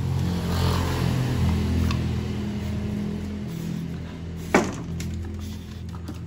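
Two dogs play-wrestling, with low growling that rises and falls, and one sharp snap or knock about four and a half seconds in.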